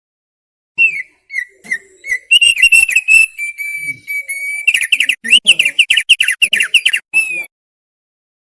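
Thick-billed heleia (opior paruh tebal) singing one phrase of clear whistled notes, with a held whistle about halfway through and then a fast run of quick sweeping notes before it stops.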